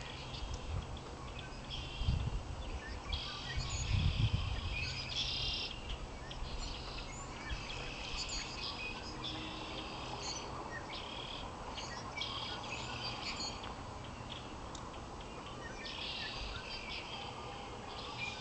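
Birds chirping and singing in repeated short phrases, over a faint steady low hum. There are two brief low rumbles about two and four seconds in.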